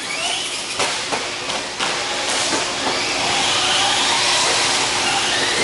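Radio-controlled cars racing on an indoor dirt track: a steady high hiss of motors and tyres that swells from about two seconds in, with a couple of short knocks in the first two seconds.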